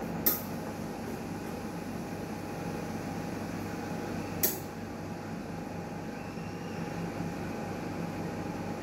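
Newmed Kronos S benchtop steam autoclave running mid-cycle with a steady mechanical hum, and two short sharp clicks, one just after the start and one about four and a half seconds in.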